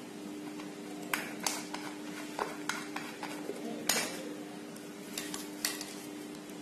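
Scattered sharp metallic clicks and clinks of metal tools and fan parts being handled on a workbench, the loudest about four seconds in, over a steady low hum.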